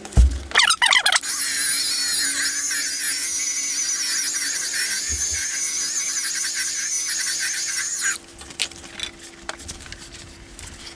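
Machine polisher running on car paint with a steady high-pitched whine for about seven seconds, then switched off.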